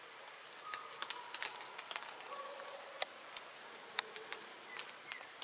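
Forest ambience: scattered sharp ticks, with the loudest about three and four seconds in, and short high chirps from insects.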